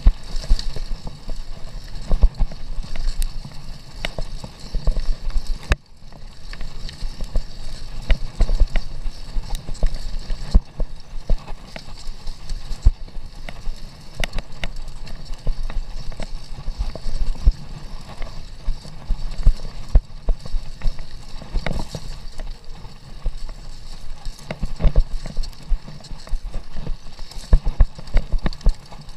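Commencal mountain bike clattering over a bumpy dirt single track: frequent irregular knocks and rattles from the bike over a steady low rumble of tyres and wind on the camera.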